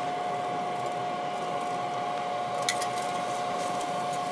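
Raw steaks sizzling on a hot grill grate beside chicken already cooking, a steady hiss with a constant hum underneath. A few light clicks of the metal grill tongs as the steaks are laid down.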